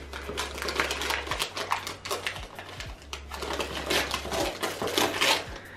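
Brown kraft wrapping paper rustling and crinkling as a gift box is unwrapped by hand, an uneven run of crackles that ends shortly before the close.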